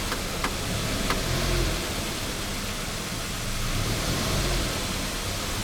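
Kia Rio's engine idling steadily with the freshly replaced clutch kit; no release-bearing noise is heard.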